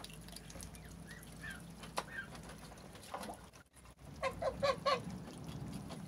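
White domestic geese calling: a few soft calls, then four quick honks in a row about four seconds in.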